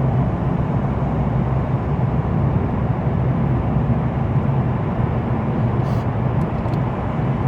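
Steady rumble of road and engine noise from inside a vehicle driving downhill through a long road tunnel.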